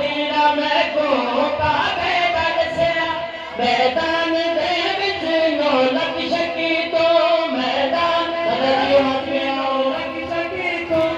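A noha, a Shia lament, chanted by a group of men's voices singing a slow, wavering melody together.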